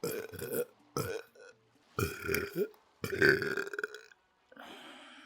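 A person belching about four times in a row, each burp short and pitched, the fourth the longest at about a second. Near the end there is a faint hiss.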